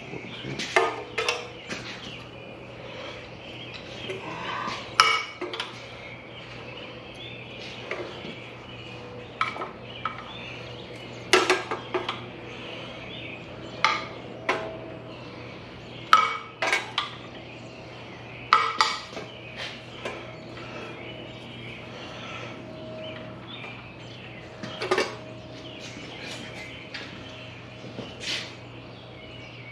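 Metal hand tools and loose parts clinking and clattering against a stripped-down cast-iron V8 engine block in irregular sharp strikes, over a steady low hum. The clinks thin out after the middle.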